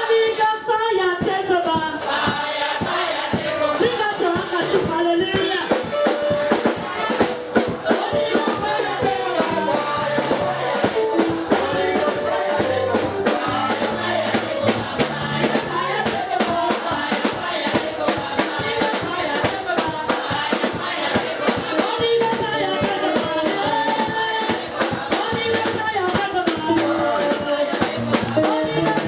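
Live gospel praise music: voices singing a wavering melody over a bass line, with steady, fast percussion strokes throughout.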